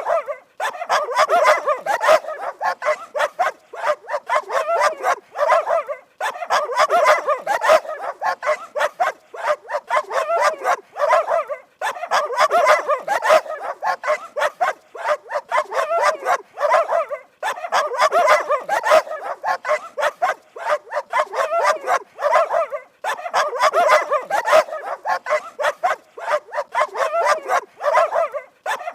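Dogs barking rapidly and without let-up, with many barks a second. The barking comes in stretches of about five to six seconds, each followed by a brief break.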